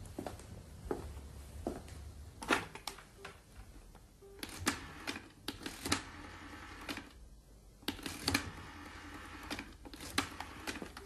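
A run of sharp, irregular mechanical clicks and knocks, several coming in quick clusters, with a few brief low tone blips between them.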